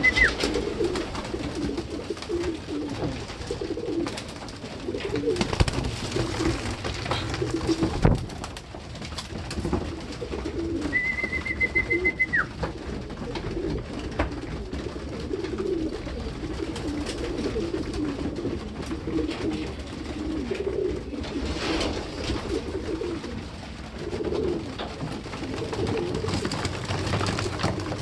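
A flock of racing pigeons cooing continuously while they feed, with a few sharp knocks among them. About a third of the way through, a steady high tone sounds for about a second and a half and then drops away.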